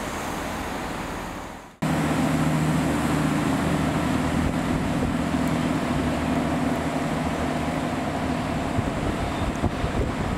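Diesel engines of a GWR Class 166 Turbo multiple unit running steadily at the platform, a low hum with two clear droning tones. It follows a cut about two seconds in.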